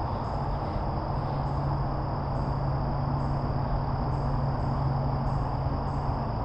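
Insects, crickets or similar, trilling in a steady, unbroken high chorus, with a second pulsing insect call repeating about once a second. Underneath runs a steady low rushing noise with a low hum.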